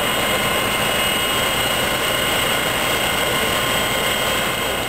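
Fire engine running steadily, its engine driving the water pump that feeds the hoses: a loud even drone with a few steady high whining tones over it.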